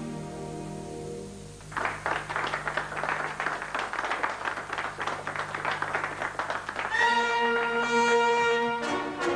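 A held orchestral chord fades out, and clapping begins under two seconds in and lasts about five seconds. About seven seconds in, the orchestra comes back in with a sustained brass chord.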